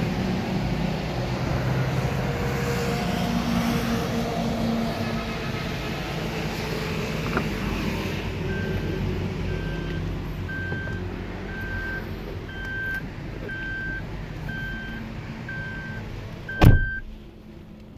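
Steady background rumble, then the Thaco Foton M4 truck cab's door-open warning chime beeping about once a second. Near the end a loud door slam cuts the chime off.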